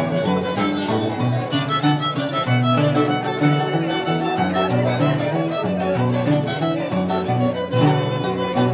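A live Andean folk band playing: a violin carries the melody over the plucked bass notes of a large Andean harp, with saxophones in the ensemble.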